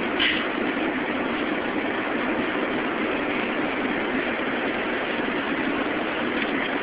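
Steady roar of an airliner's passenger cabin, the even rush of engine and air noise, with one brief sharp click about a quarter second in.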